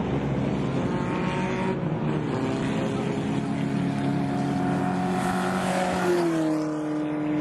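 Several minicafetera race-car engines running hard at racing revs as the cars come to the finish line, their pitches overlapping and shifting. One engine note falls in pitch about six seconds in, as a car passes.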